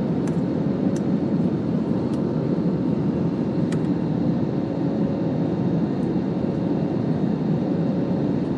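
Airliner cabin noise after takeoff: a steady, loud rush of engines and airflow with a faint steady hum through it. A few faint ticks come in the first few seconds.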